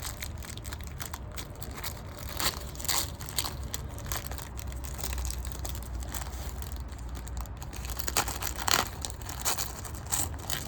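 Brittle poly plastic wrapper of a baseball card rack pack crackling and crinkling in irregular crackles as it is pried and torn open by hand. The plastic has gone brittle from damp storage and breaks off easily.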